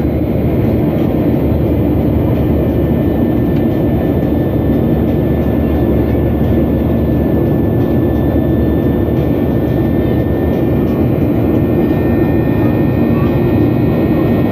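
SpiceJet jet airliner during takeoff, its engines and airflow making a loud, steady rush with a few faint steady whining tones above it.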